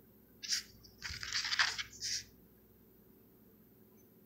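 A rigid plastic toploader card holder being handled and turned over in the fingers: a short click about half a second in, then about a second of scratchy plastic scraping, then quiet.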